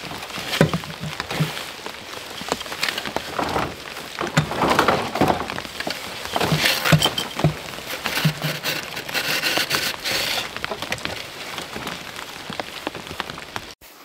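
Steady rain with many close drop hits, mixed with irregular knocks and scrapes from a fruit picker's pole being pushed under a pile of gutter sections to fish a rope through.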